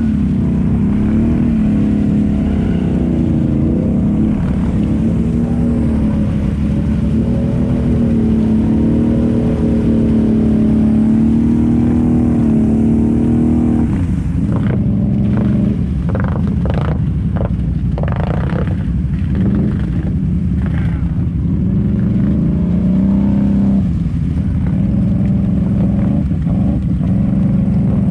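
ATV engine running under load at fairly steady revs as it pushes through deep mud water, the pitch wavering up and down. About halfway through a string of short, sharp splashes and knocks cuts in for several seconds before the steady engine sound returns.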